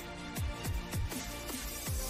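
Electronic background music with a deep bass note that slides down in pitch several times over steady synth tones.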